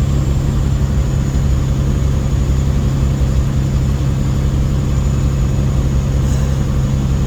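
Semi truck's diesel engine running steadily with road noise, heard from inside the cab while driving: a constant low drone that does not change.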